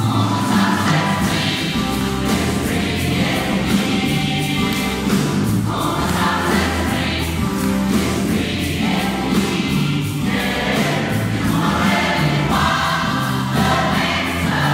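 Large mixed gospel choir of men and women singing in full harmony, with a moving bass line and a steady beat underneath.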